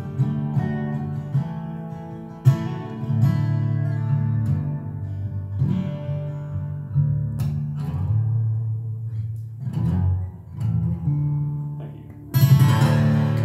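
Amplified steel-string acoustic guitar played fingerstyle: bass notes under picked chords, with percussive right-hand hits. There is a sharp strike about two and a half seconds in and a loud strummed hit near the end.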